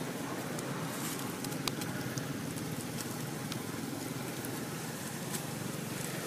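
Steady outdoor background rumble, with a few light clicks and crackles of dry leaves as monkeys shift and groom on the leaf litter.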